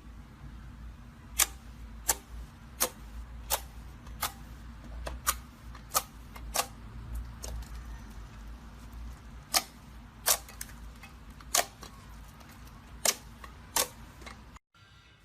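Slime being pressed and stretched, giving off sharp pops and clicks as air pockets burst: about a dozen of them at irregular intervals, often two in quick succession.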